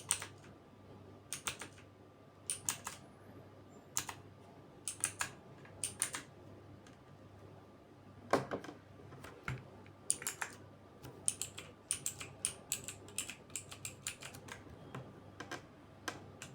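Keys on a Torima TK05 mechanical gaming keyboard with clicky blue switches being pressed: sharp clicks, often in quick pairs, at an uneven pace, coming faster in the second half.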